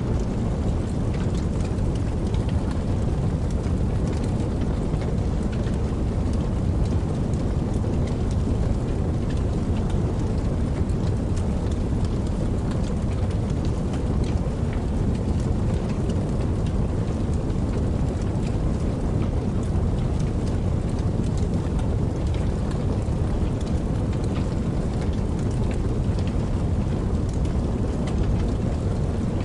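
Steady rain falling, a continuous even hiss with a deep rumble beneath and faint scattered drop ticks.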